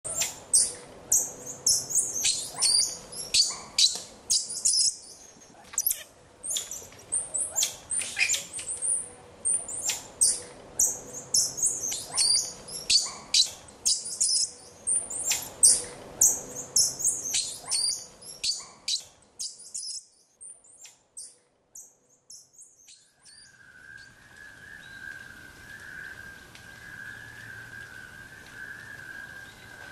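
Birds chirping, many short high calls in quick succession, that stop about 19 seconds in. After a quiet gap, a steady, slightly wavering high tone starts about 23 seconds in and holds over a faint hiss.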